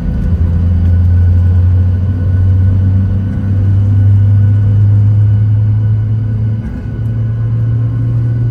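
Boeing 737 jet engines heard from inside the cabin while taxiing: a loud, steady low drone with a faint hum above it, its pitch edging up slightly about three seconds in and again near the end.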